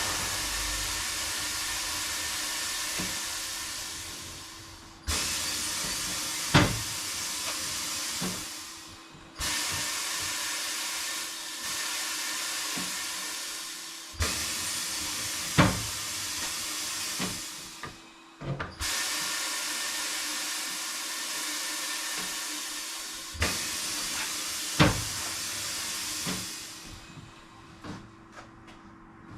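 Air hissing in about six long bursts, each starting sharply and tapering off before the next, with metal knocks and clanks of tools in between.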